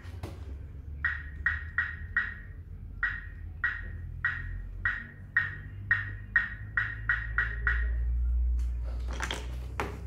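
A run of short, sharp clicks, about two a second, over a low hum, then a few louder knocks near the end.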